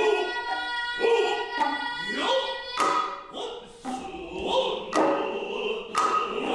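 Noh performance music: sharp hand-drum strikes about once a second, with gliding drummers' calls and long held pitched tones.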